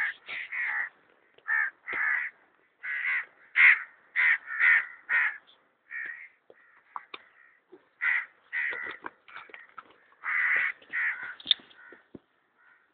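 Birds calling: a string of short, harsh calls in irregular bursts with brief pauses between.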